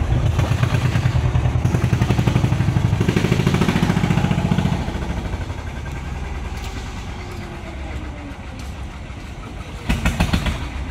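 Small wooden fishing boat's engine running with a fast, even pulse, loud at first and fading after about five seconds as the boat moves out onto the river. A brief clatter of knocks comes near the end.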